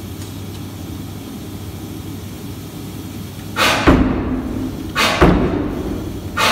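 Giant industrial air hammer striking hot steel on its anvil: three heavy single blows about a second and a half apart, the first about three and a half seconds in, each ringing briefly in the hall. Before the blows there is only a steady low hum.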